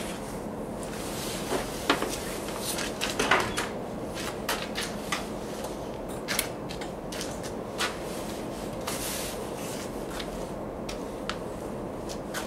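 Scattered light knocks and clicks over a steady low background hum, with the strongest knocks about two and three seconds in. The diesel engine in view is not yet turning over.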